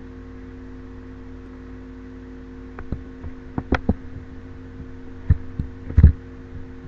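A steady low hum with a handful of short clicks and knocks in the second half, the loudest near the end.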